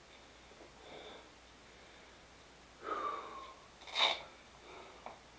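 A man breathing hard from the exertion of heavy incline bench press, with short exhales and a sharp snort about four seconds in.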